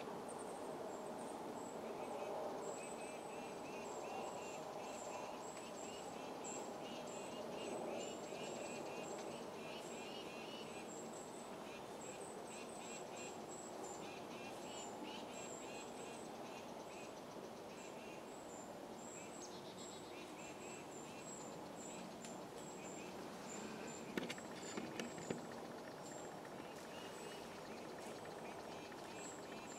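Woodland insects chirping: a steady high pulsing chirp and a lower, faster chirping over a faint outdoor hiss. Late on come a few soft clicks.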